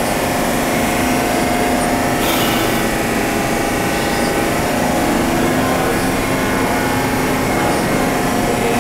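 R46 subway train coming to a stop at the platform, with a steady electrical whine over a rumble and a short hiss about two seconds in.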